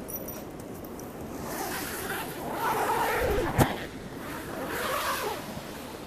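Zipper of a canvas tent's window panel being pulled open in two long rasping runs, with a sharp click about halfway through as the flap comes loose.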